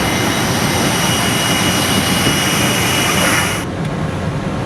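Steady jet airliner engine noise with a thin high whine. About three and a half seconds in, the hiss and whine cut off abruptly, leaving a lower rumble.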